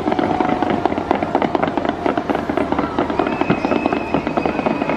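Fireworks display: a dense, continuous barrage of crackling bangs and pops, many per second.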